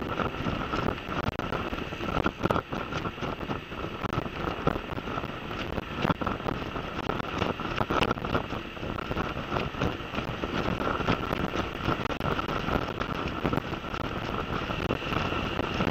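Steady wind rushing over the microphone of a camera on a moving motor scooter, with the scooter's running and road noise underneath.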